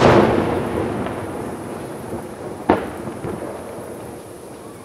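An aerial firework shell bursts with one loud boom whose echo fades slowly over several seconds, and a second, shorter sharp bang comes just under three seconds in.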